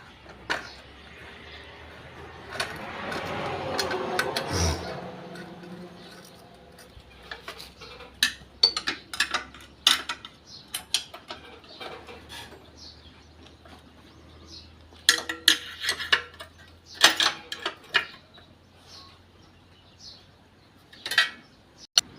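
Metal tools and motorcycle clutch parts clinking and knocking as they are handled, in irregular clusters of sharp clinks. A couple of seconds in, a louder rushing noise swells for about two seconds and then stops abruptly.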